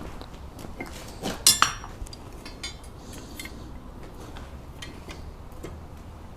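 Steel blacksmithing tools being set down and handled on an anvil: a few irregular metallic clinks, with one louder ringing clank about a second and a half in.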